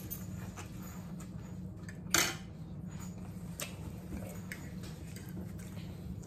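Forks clinking and scraping on dinner plates, with one sharper clink about two seconds in, over a steady low hum.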